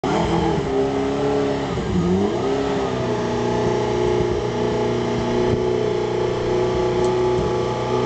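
McLaren MP4-12C Can-Am Edition's twin-turbo V8 revving while stationary: the revs rise and fall in the first couple of seconds, then from about three seconds in it is held at steady raised revs for a static trackside noise test.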